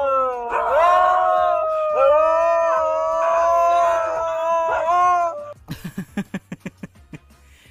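A dog howling in long, drawn-out howls, with short breaks about half a second and two seconds in, stopping about five seconds in. A quick run of short sharp sounds, about six a second, follows near the end.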